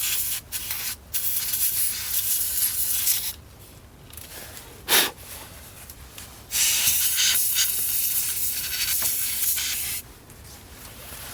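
Canned compressed-air duster spraying in hissing blasts into an opened boombox to blow out dust: a long spray with short breaks, a brief loud blast about five seconds in, then another long spray that stops about ten seconds in.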